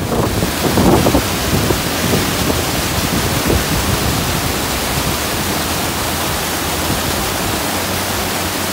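White water rushing and splashing over shoreline rocks: a loud, steady rush, somewhat stronger in the first second or two.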